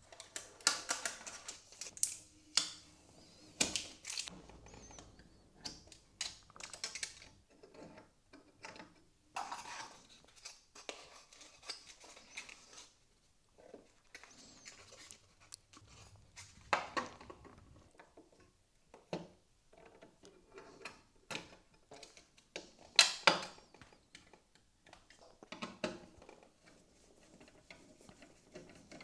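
Small hard plastic and metal parts being handled: irregular clicks, taps and short rattles with quiet gaps between them, the sharpest a quick pair of clicks near the end.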